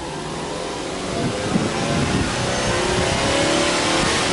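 Subaru Impreza 1.5i-L's EL15 1.5-litre flat-four (boxer) engine free-revved while parked, heard from behind at the exhaust. Engine speed climbs from about a second in and stays high near the end.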